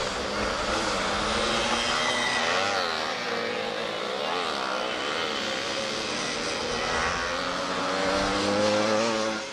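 Small two-stroke racing-kart engine buzzing, its pitch wavering up and down, then rising and getting louder near the end.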